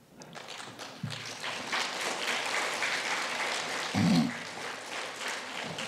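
Audience applauding, the clapping building up in the first second and then running on steadily.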